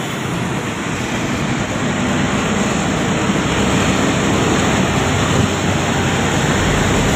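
Road traffic passing close by: a truck and motorcycles going by, a steady rush of engines and tyres that grows slowly louder, with a deeper rumble near the end as a vehicle passes alongside.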